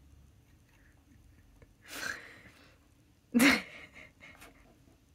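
A person's breath sounds: a sharp breath in about two seconds in, then a short, louder burst of breath and voice about a second and a half later.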